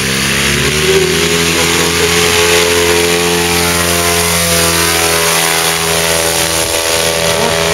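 Paramotor engine and propeller revving up to full takeoff power, the pitch climbing over the first second, then running steadily at high power as the pilot lifts off.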